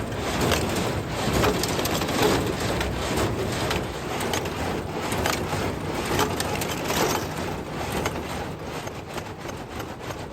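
1960s New Holland hay baler running and packing hay, with a rough mechanical clatter and regular crunching strokes about once a second, growing quieter near the end.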